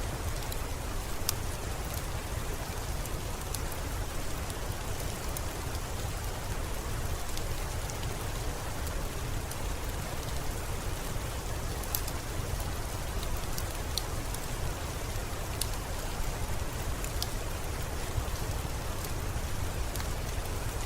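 Steady rain with a low rumble underneath and scattered sharp ticks of individual drops striking.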